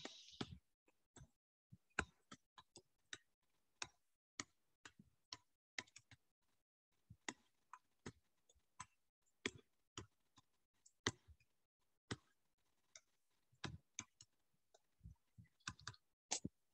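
Faint, irregular clicks and taps of a stylus on a tablet screen during handwriting, a few to the second.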